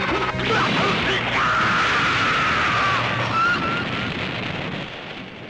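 Tokusatsu fight sound effects of a monster being destroyed: a sharp hit about a third of a second in, a long high cry that slowly falls, then an explosion whose noise dies away near the end.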